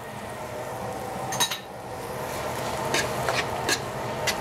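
A utensil stirring diced tomatoes into frying bacon, garlic, onion and peppers in a pan, with a steady sizzle and several scrapes and clinks against the pan, the loudest about a second and a half in.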